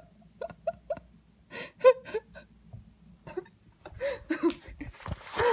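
A person's short bursts of laughter close to the microphone, loudest about two seconds in. From about four seconds in, rustling handling noise comes in as the phone is moved.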